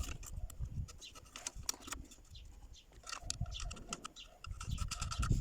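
Light clicks and taps of small metal parts being handled and fitted on a car alternator during reassembly, with some duller handling knocks near the end.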